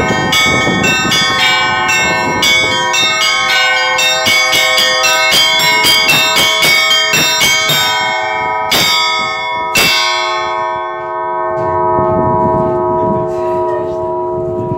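Church bells ringing: a quick run of strikes on the small bells for about eight seconds, then two heavy single strikes about a second apart, after which the bells' tones ring on.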